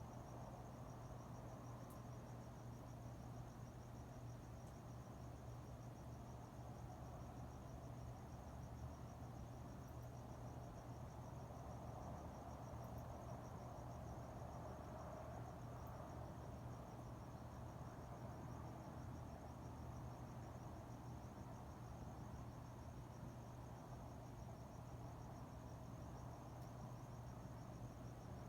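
Crickets chirping steadily and faintly, over a low steady hum and a soft wash of background noise that swells a little around the middle.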